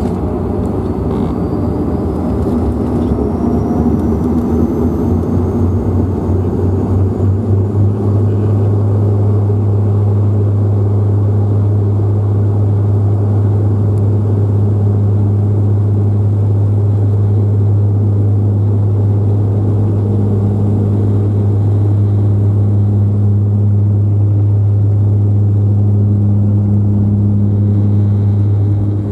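De Havilland Canada Dash 8 Q400's Pratt & Whitney PW150A turboprops and six-bladed propellers at takeoff power during the takeoff roll, heard from a cabin seat beside the propeller. A rising whine over the first several seconds as power comes up, then a loud, steady propeller drone.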